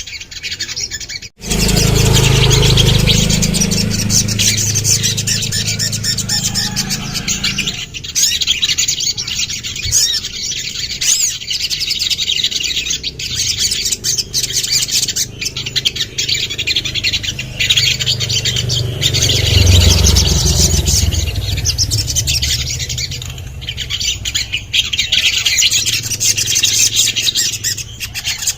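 Sogon, a sunbird, singing continuously in rapid high chirps and trills. The sound cuts out briefly about a second in, and a low rumble runs underneath for stretches.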